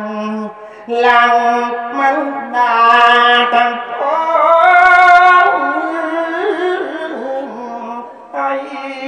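A Thai monk's voice singing a sermon verse in a chanted, melodic style, amplified through a microphone. Long held notes bend and waver, with brief pauses for breath about half a second in and near the end.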